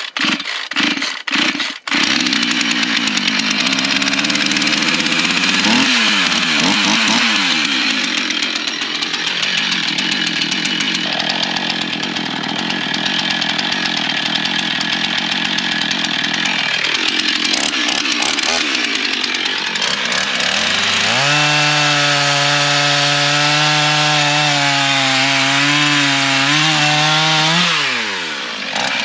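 Two-stroke chainsaw running hard, cutting firewood: it sputters a few times in the first two seconds, then runs continuously, its pitch dropping and climbing several times, with a steadier high-pitched stretch near the end.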